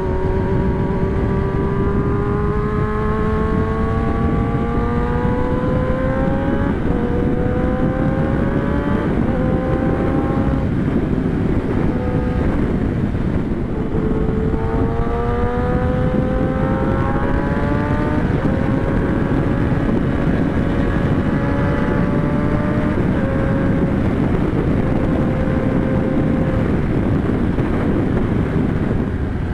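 Kawasaki ZX-10R's inline-four engine under acceleration, its pitch climbing in long steady rises and dropping back at each of several upshifts. Wind rushes over the microphone.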